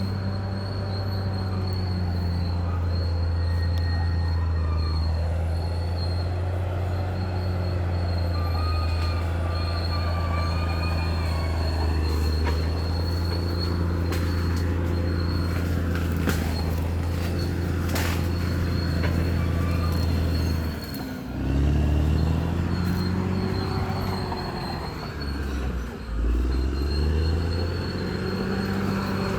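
Bulldozer diesel engine running hard under load with a steady high-pitched whine over it; the engine note sags and recovers twice in the latter part.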